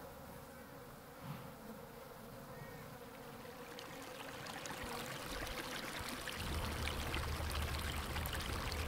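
Flies buzzing over sewage running from an overflowing manhole, the running water slowly growing louder. A low rumble joins underneath about six seconds in.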